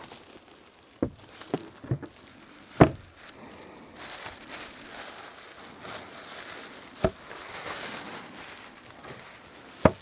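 Clear plastic bag crinkling and rustling as it is pulled off a small portable fridge, with a few sharp knocks and taps scattered through.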